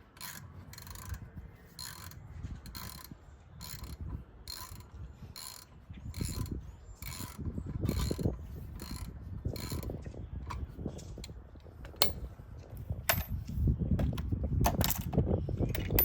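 Hand ratchet clicking in a steady rhythm, about two strokes a second, as a rear brake caliper mounting bolt is backed out; in the last few seconds the rhythm breaks up into scattered clicks and knocks.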